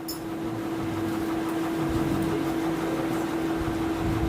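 A steady hum with one constant tone under it, with no speech.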